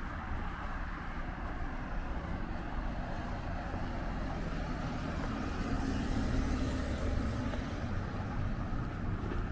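Road traffic going by, with one vehicle swelling louder as it passes about six seconds in.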